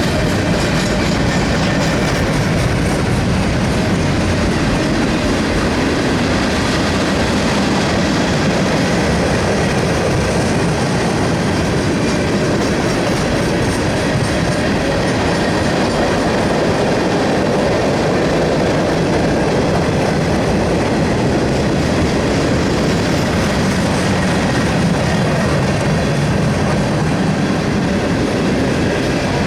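Freight cars of a mixed freight train rolling past at speed, the steel wheels running steadily over the rails.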